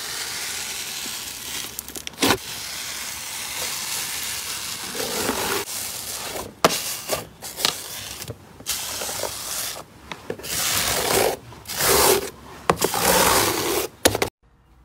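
Hand pressing and spreading a large sheet of bubbly green slime. An even fine crackle of air bubbles comes first, then a run of uneven squishing strokes with a few sharp pops as the hand pushes through it. It cuts off just before the end.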